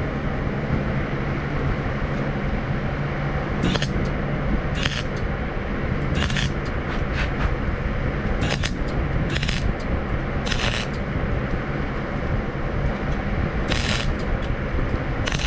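Wire-feed welder at work: a steady hum under the work, broken by about nine short bursts of crackling arc as the broken steel rake is welded and built up.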